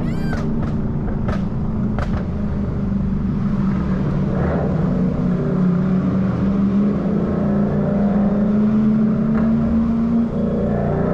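2012 Ford Mustang Boss 302's 5.0-litre V8 running under steady load while driving, its pitch climbing gently over several seconds, then dipping briefly near the end before picking back up. A few sharp clicks sound in the first two seconds.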